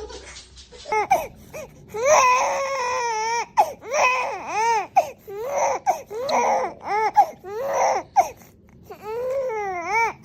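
Infant crying in a run of high-pitched wails, each rising and falling in pitch, some short and some drawn out, with brief breaths between them.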